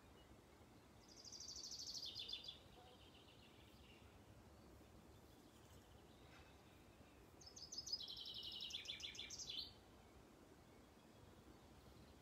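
A songbird singing two phrases, each a rapid trill of high repeated notes that steps down in pitch, one about a second in and one about seven seconds in, over faint steady background hiss.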